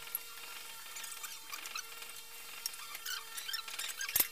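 Sheet-metal cover of an arc welding machine being handled and fitted onto its steel casing: faint high squeaks and chirps of metal on metal, then a burst of loud clattering knocks near the end as the panel goes into place. A faint steady hum runs underneath.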